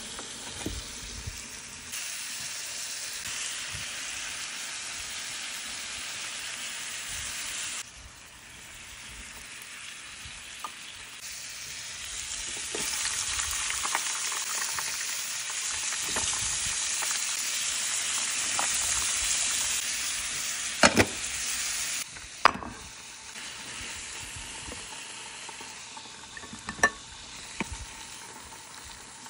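Thinly sliced beef and green peppers sizzling on an electric griddle, with fries frying in hot oil beside them. There are a few sharp clacks of a utensil against the pan, the loudest about two-thirds of the way through, and the sizzle jumps louder and softer abruptly several times.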